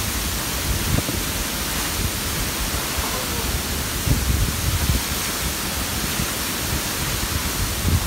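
Loud, steady rush of a tall waterfall's water plunging into its pool.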